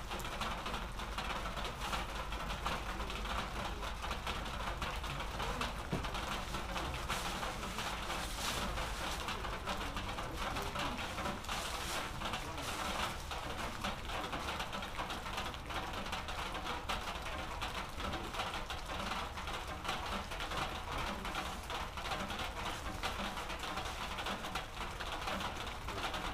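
Steady rain falling, a dense, even patter of fine drops.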